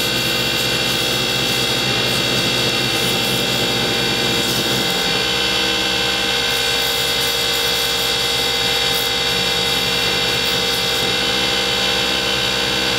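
Wood lathe running at speed, a steady motor whine of several tones, with light scraping now and then as the spinning resin-and-wood stopper blank is shaped. The lower hum changes about five seconds in.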